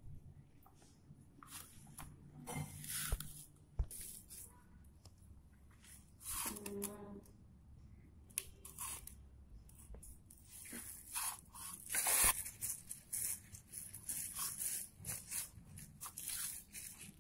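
Hands rubbing and mashing crumbly chhena (fresh cheese curd) with sugar against a steel plate: irregular soft scraping and rustling strokes, with one louder scrape about twelve seconds in.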